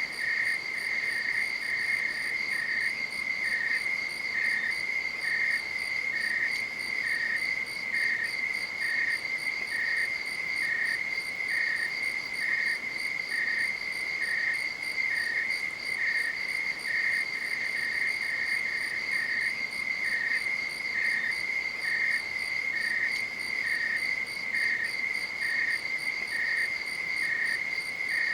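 Night insects calling: one high, unbroken trill, with a second, slightly lower chirp repeating at a steady pace over it.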